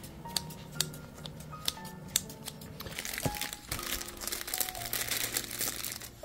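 Cooking over a charcoal fire: scattered crackles and pops, with a hissing sizzle swelling in the second half as a pot of soup steams on the grill. Soft background music plays underneath.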